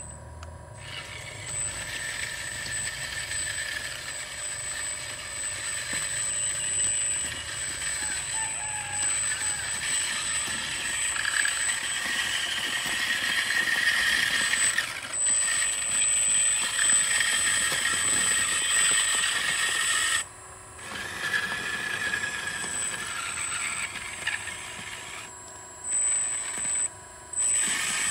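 Hitachi Zaxis 360H RC hydraulic excavator's electric hydraulic pump running under load: a constant high whine over a rushing, hissing sound that swells and eases as the controls are worked, cutting out briefly about twenty seconds in and twice more near the end.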